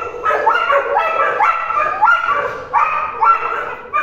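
Dogs barking over and over, about two or three short barks a second, as they are let loose to run and play.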